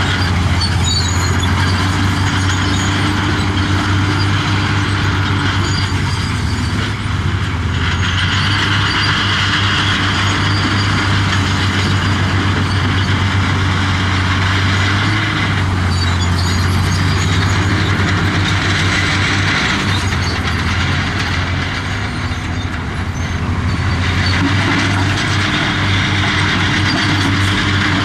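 Heavy diesel earthmoving machinery running steadily, with a continuous metallic clatter over the engine's low drone; the engine pitch and load shift slightly now and then.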